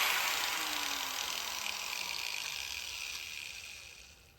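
A power tool's whir winding down after being switched off, fading steadily with a falling pitch until it is gone about four seconds later.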